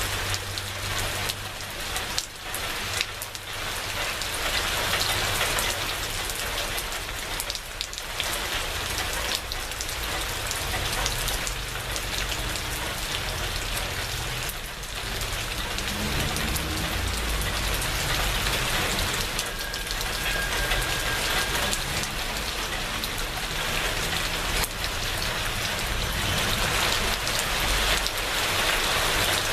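Steady rain falling, an even hiss, with a low rumble underneath that grows stronger around the middle.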